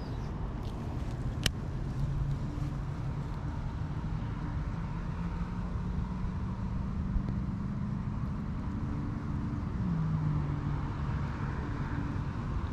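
A motor vehicle's engine drone over a steady low rumble of traffic, its pitch rising slowly and then dropping about ten seconds in. A single sharp click comes about a second and a half in.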